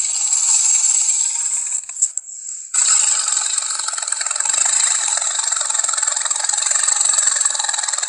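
Film-style dinosaur sound effect: a long, harsh growl with no clear pitch, thin and lacking any bass. It breaks off for about a second around two seconds in, then starts again.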